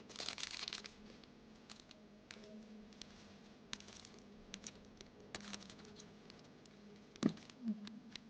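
Crinkling of paper packaging at the start, then scattered light clicks and taps as masking tape rolls and paper are handled, with one sharper click near the end.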